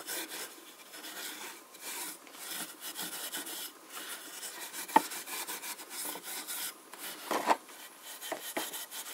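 A pad of 00 steel wool rubbing pale boiled linseed oil into the carved timber drawer front of a c.1900 Singer treadle sewing machine cabinet, in repeated back-and-forth strokes. One sharp click about halfway through.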